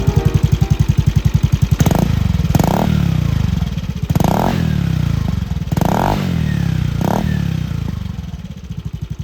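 Yamaha Majesty 125 scooter's single-cylinder four-stroke engine running through a Beams SS400 Sonic aftermarket silencer. It idles with a steady pulsing beat, is blipped about five times in quick succession, each a short rise and fall in revs, then settles back to idle.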